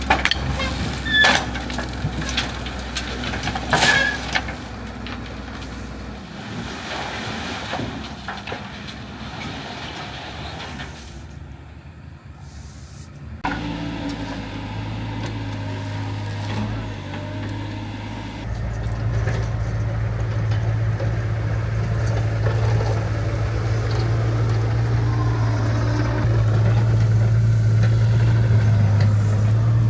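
A heavy vehicle's engine running steadily, growing louder through the second half, with a few sharp clanks and hisses in the first seconds.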